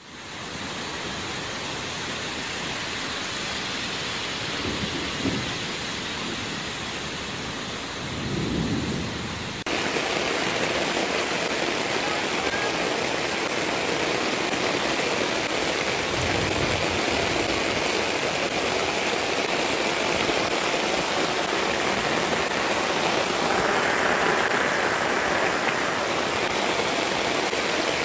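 Steady noise of heavy rain, with a couple of low rumbles in the first several seconds. About ten seconds in it changes abruptly to a similar steady noise.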